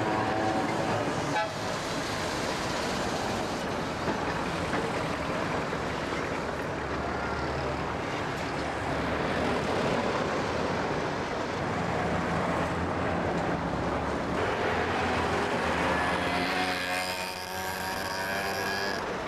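Street traffic running steadily, with a tram going past close by in the first second and a moped's small engine passing close near the end.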